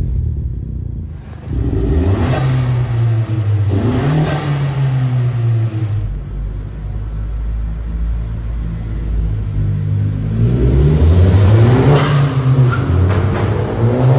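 2020 Honda Civic Si's turbocharged 1.5-litre four-cylinder with an aftermarket MAP cat-back exhaust, accelerating and revving as the car drives inside a concrete parking garage. The note climbs in pitch several times, drops back between climbs, and is loudest near the end.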